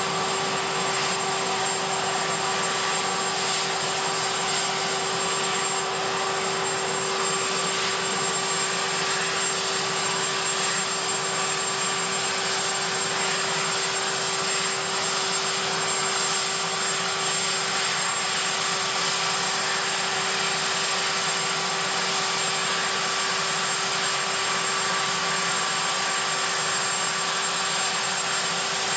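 Marine One, a Sikorsky VH-3D helicopter, running on the ground with its twin turboshaft engines. The sound is a steady, unchanging turbine whine and hum over a loud rushing noise.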